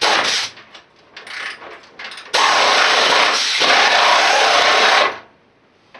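Air impact wrench running: a short burst at the start, then a steady run of nearly three seconds that cuts off abruptly.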